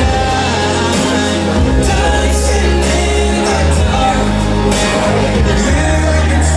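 Loud pop-rock music with singing over a heavy bass line.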